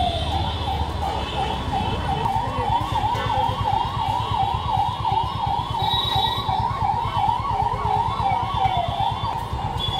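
Electronic siren in a fast yelp, its pitch sweeping up and down about three times a second, over a low background rumble.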